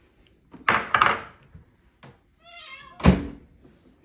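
A cat meows once, briefly, about two and a half seconds in. It comes between a clatter near the start and a sharp knock about three seconds in, the kitchen handling of a bowl and microwave door.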